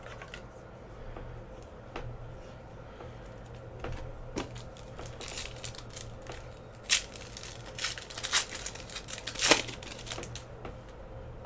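Foil trading-card pack wrapper crinkling and tearing while the cards are handled, with scattered light clicks; the loudest crackles come about seven and nine and a half seconds in.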